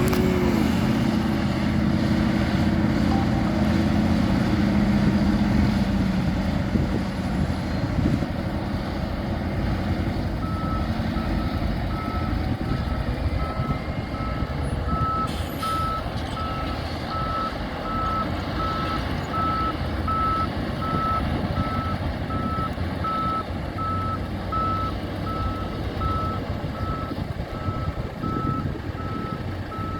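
A heavy construction vehicle's diesel engine runs steadily and loudly. From about a third of the way in, a reversing alarm beeps about once a second, the sign of the machine backing up.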